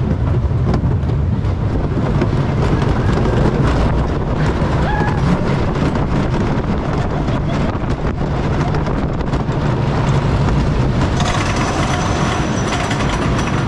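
Wooden roller coaster train rolling along its wooden track, a steady rumble and rattle of wheels on the rails. Near the end, a steady high whine joins.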